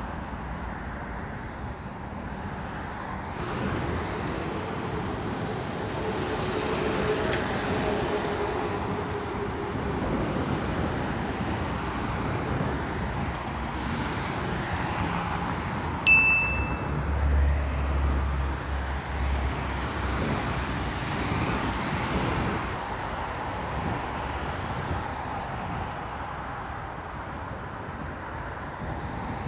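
Road traffic: cars passing one after another with engine and tyre noise. About halfway through comes a click and a short bell-like ding, the sound effect of a subscribe-button animation, followed by a deeper engine rumble lasting a few seconds.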